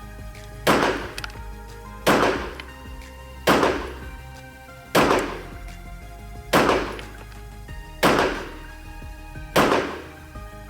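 Glock 17 9mm pistol firing slow aimed shots, seven in all, evenly spaced about a second and a half apart, each with a short fading tail.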